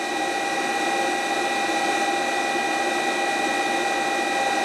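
Inverter cooling fan running steadily while the inverter carries a 250-watt battery load: an even whir with several steady whining tones over it.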